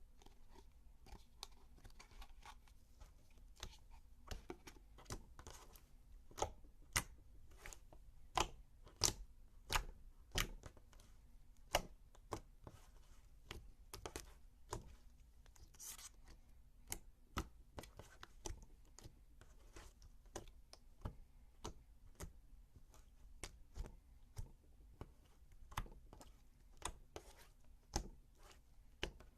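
Slime being pressed and squished by hand, giving off irregular sharp clicks and pops, about one or two a second, some much louder than others.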